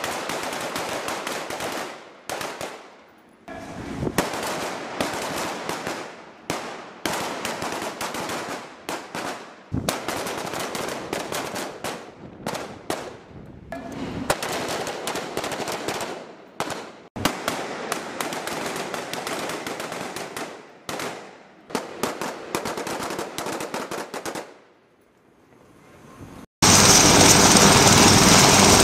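Many rifles firing at once in rapid, overlapping shots, a squad of Marines shooting at range targets, with a short lull after about 24 seconds. Near the end it switches abruptly to the loud, steady running of a helicopter's engines and turning rotor.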